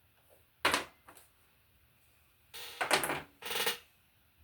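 Handling noise of small hard objects: a sharp knock a little under a second in and a lighter tap after it, then two longer rattling, scraping bursts in the second half.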